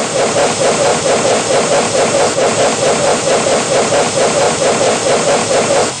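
Steam locomotive chuffing at a quick, even beat, with a steady hiss of steam.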